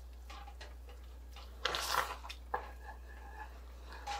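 Wooden spatula stirring thick cheese sauce in an enameled cast-iron pot: soft squishing and scraping, loudest in a short scrape about two seconds in, followed by a light tap.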